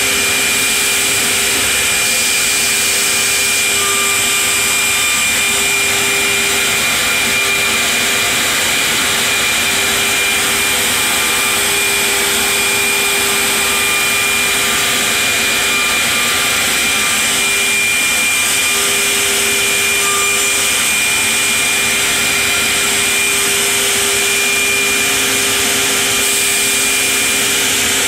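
Builders Automation 5-axis CNC stair routing machine cutting: its 7-horsepower router spindle running steadily as it routes stair trenches into a clamped wooden board, a loud even machine whine over a rushing noise.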